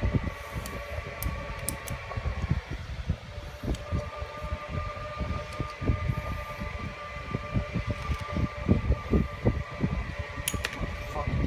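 A steady hum made of several held tones, like a shop machine or fan, with irregular soft low knocks and bumps as the cast-iron steering box is handled on the bench.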